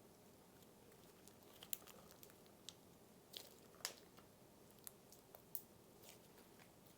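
Cereal slime being slowly pulled and stretched, giving faint, scattered crackles and small pops, the loudest a little past the middle, over a low steady hiss.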